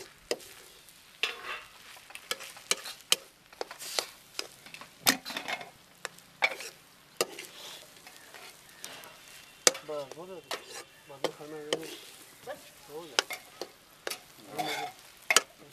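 Metal spoon and slotted spatula scraping and clinking against a steel kadai as egg fried rice is stirred and tossed, with a light frying sizzle underneath. The scrapes and knocks come irregularly, several a second.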